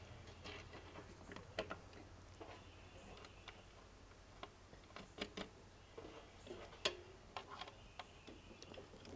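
Faint, irregular clicks and taps of a metal seat-switch bracket being handled and fitted against the underside of a riding mower's seat, with one sharper click about seven seconds in.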